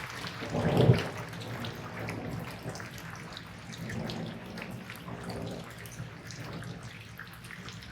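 Running water with many small drips and splashes; a louder splash comes just under a second in.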